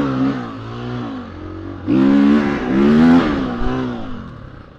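Enduro motorcycle engine revving as the bike rides a dirt trail, its pitch rising and falling with the throttle. It opens up louder about two seconds in, then eases off and fades near the end.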